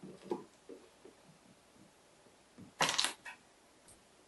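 Fingers handling the plastic housing of a Keurig coffee maker, with soft rubbing and tapping, then a sharp burst of clicks about three seconds in, followed by a couple of fainter clicks.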